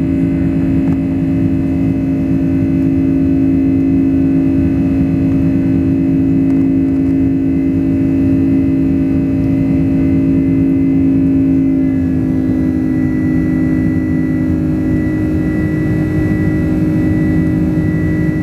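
Jet airliner's engines and airflow heard inside the cabin during the climb: a loud, steady hum over a low rumble. About two-thirds of the way through, the engine tone shifts and a higher whine joins in.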